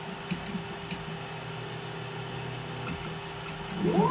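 Creality Ender 3D printer running its automatic bed levelling: a low stepper-motor hum with a few light ticks as the print head and bed move. Near the end a stepper whine rises in pitch as an axis speeds up for a travel move.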